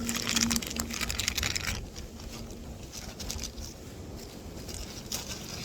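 Plastic packaging crinkling and rustling as it is handled for about the first two seconds, then quieter, with a few more crinkles near the end over a steady low rumble.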